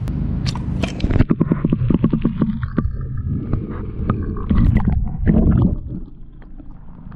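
Pool water splashing and sloshing around a camera held at the surface, with irregular knocks and gurgles, easing off near the end.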